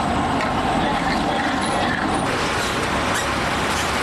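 Steady road traffic noise: a continuous rumble and hiss of passing vehicles.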